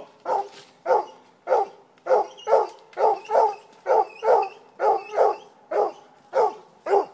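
Coonhound barking treed: a steady run of short, sharp barks, about two a second, the sign of a raccoon held up a tree.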